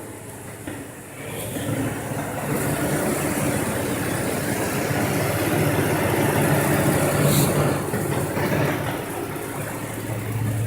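Car engine idling with a steady low hum. A louder, rougher engine sound swells in about a second and a half in, holds for several seconds, then eases off near the end.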